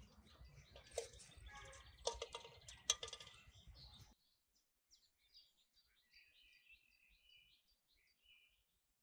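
A few sharp knocks and clatter over rough noise for about four seconds, which cut off suddenly. After that, faint bird chirping.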